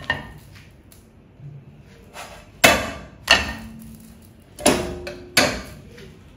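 Kitchenware knocking against hard surfaces: a light tap at the start, then two pairs of sharp knocks in the second half, each with a brief ring.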